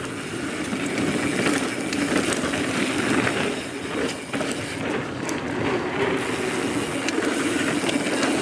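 Transition Spur mountain bike descending a dirt trail at speed: knobby tyres rolling over the dirt as a steady noise, with short clicks and rattles from the bike over bumps.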